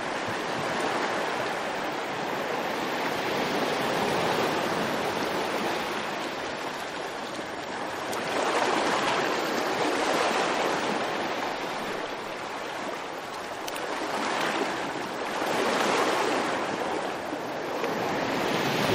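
Rushing noise of waves, swelling and ebbing every few seconds.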